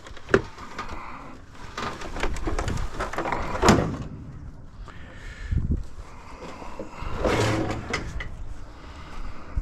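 Irregular knocks, clanks and scraping as scrap metal is handled and hauled, with one loud knock about three and a half seconds in.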